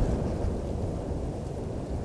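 Low, steady rumbling of wind buffeting an outdoor microphone.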